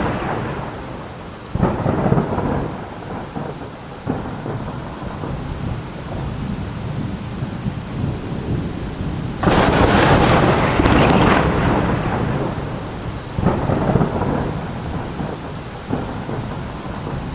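Thunderstorm: rolling thunder over steady rain, with sudden claps about a second and a half in and again at four seconds. About halfway through comes the loudest peal, rumbling for two to three seconds before a weaker one follows.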